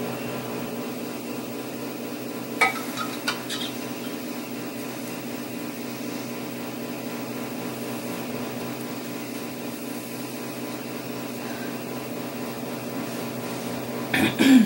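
Steady low room hum, like ventilation or an electrical hum, with a few brief knocks about two and a half to three and a half seconds in.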